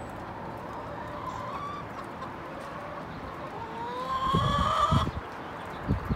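Hens calling to ask for food: faint rising calls, then one long drawn-out rising call starting about three and a half seconds in, the loudest part. A few low thumps come with it and again near the end.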